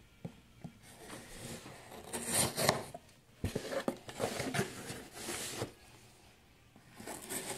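Cardboard shipping box being handled and turned over: scattered rustles, scrapes and small knocks of cardboard, with a quiet gap a little after the middle.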